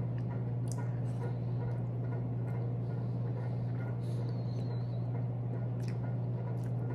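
A few faint clicks and smacks of someone chewing and picking at chicken feet with her fingers, over a steady low hum that is the loudest sound.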